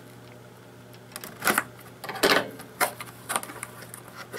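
Hands working open a cardboard product box: a series of short scrapes and clicks of fingers and cardboard, about one every half second after the first second.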